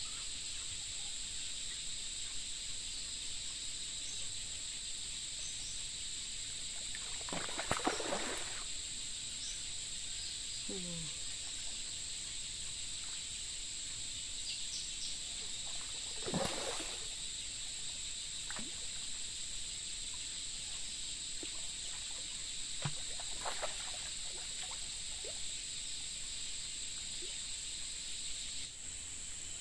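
Steady high-pitched insect chorus, with a few short splashes as the hooked patin catfish thrashes at the surface; the loudest splashes come about 8 and 16 seconds in.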